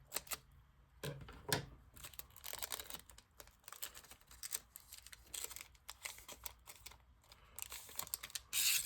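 A trading-card pack's wrapper is being crinkled and torn open and the cards handled. It makes a run of small crackles and clicks, with a louder crinkle of the wrapper near the end.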